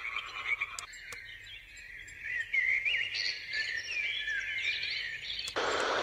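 AuCuTee white noise machine playing a recorded nature track of high, chirping animal calls through its small speaker. About five and a half seconds in, it switches abruptly to a steady, even hiss.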